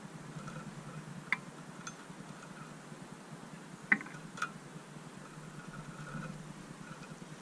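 A few sharp taps and clicks from goldfinches pecking and gripping at a metal-mesh seed feeder, the loudest about four seconds in, over a steady low background hum.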